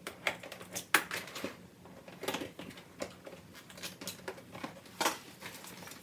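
Cardboard box being opened by hand: irregular sharp clicks, scrapes and crinkles as the tape is cut and the lid lifted, with plastic packaging rustling. The loudest click comes about a second in.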